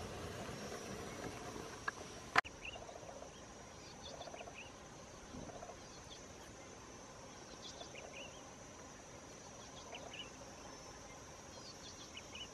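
Outdoor insect ambience: a steady high-pitched insect drone, with scattered short chirps and trills. A single sharp click sounds about two seconds in.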